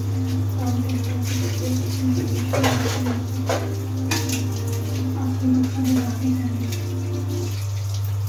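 A steady low hum with a faint wavering voice-like tone over it and a few sharp clinks of kitchen utensils.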